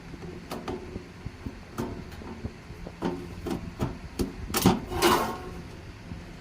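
Irregular clicks and knocks of hands and tools working on a safe, with a louder scrape about five seconds in.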